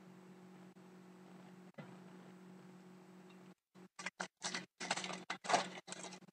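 Wrapper of a hockey card pack rustling as it is handled and opened: a string of short crinkles in the last two seconds or so, over a faint steady electrical hum.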